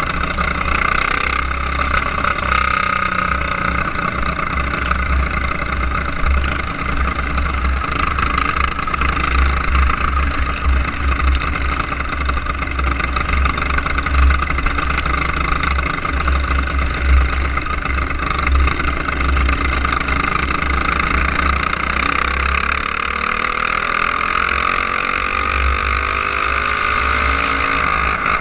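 Racing kart's small engine running at speed, heard from onboard with a heavy low rumble; in the last few seconds the engine's pitch sweeps down and back up as the kart goes through a turn.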